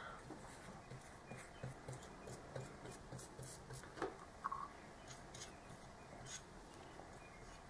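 Faint brushing and rubbing of a bottle's brush applicator spreading Form-A-Gasket sealant onto a metal outboard water pump plate, with a few light clicks, two of them sharper about four seconds in.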